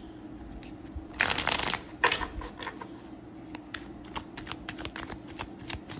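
A deck of tarot cards shuffled by hand: a short flutter of cards about a second in, then light, scattered clicks as the cards are slid and tapped together.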